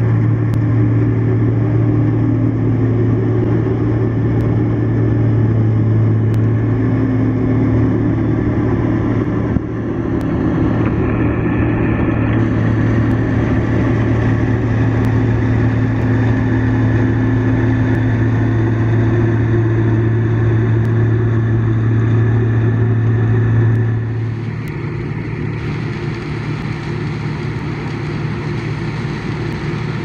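Claas Mega 360 combine harvester running steadily under load while harvesting sunflowers, a loud continuous engine and machinery drone. A little after two-thirds of the way through it turns somewhat quieter and lower-toned.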